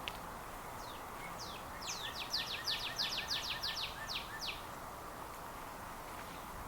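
A songbird singing a rapid run of about a dozen high, downward-slurred notes for about three seconds, over a steady outdoor background hiss.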